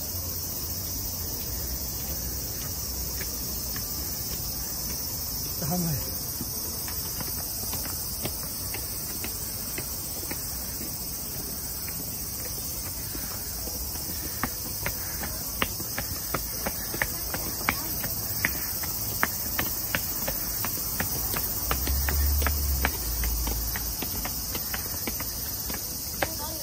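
A steady, high-pitched chorus of summer insects shrilling without a break. About halfway through, footsteps on stone steps join in, about two a second, as someone climbs a stone stairway.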